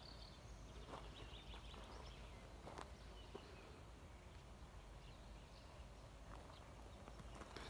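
Quiet footsteps crunching on loose gravel, a step every second or so at an uneven pace.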